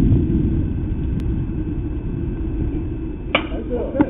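Steady low rumble of outdoor noise at a baseball field, with one sharp knock about three seconds in and a fainter knock near the end.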